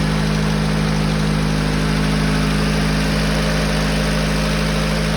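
GAZelle's ZMZ-406 inline-four petrol engine idling steadily, just after a repair for a timing-chain knock. It was freshly started, and its hydraulic lash adjusters are still pumping up.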